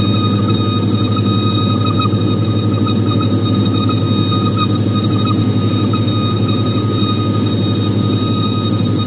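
Data-centre machinery running as a steady, loud drone: cooling and server fans making a deep hum, with several thin, high, steady whining tones on top.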